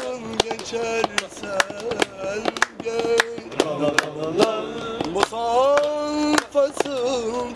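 A young man singing unaccompanied: held, wavering notes with ornamented glides, accompanied by many sharp hand claps.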